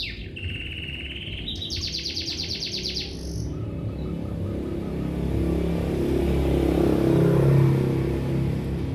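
Lovebird chirping: a falling chirp, a steady trilling note, then a buzzy rapid chatter, ending about three and a half seconds in. A low rumble then swells, peaks near the end and fades.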